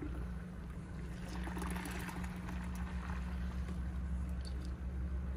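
A jar pushed down into a bucket of frothy, yeast-brewed compost tea, the liquid gurgling and sloshing into it as it fills, strongest for a couple of seconds in the middle. A steady low hum runs underneath.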